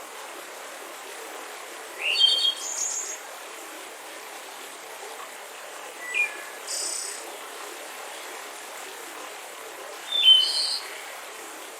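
A small bird calls three times, about four seconds apart, each call a quick rising note followed by a brief higher phrase, over the steady rush of a mountain river.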